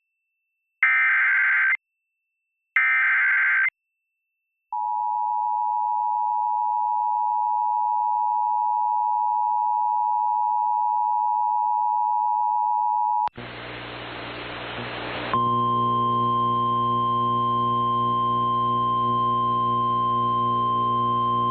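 Emergency Alert System broadcast: two SAME header data bursts, short harsh electronic screeches about a second each, then the two-tone EAS attention signal held steady for about eight and a half seconds. It cuts off suddenly to about two seconds of hiss, followed by a steady electronic hum.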